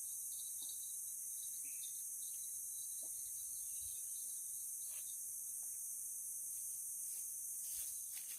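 Steady, high-pitched chorus of crickets and other insects, with a few faint ticks.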